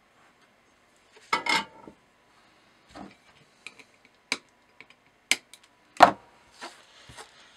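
Small flush cutters snipping the excess leads of a freshly soldered battery holder on a circuit board, amid handling of the board and tools: a string of sharp clicks, the loudest about six seconds in, after a longer clattering knock about one and a half seconds in.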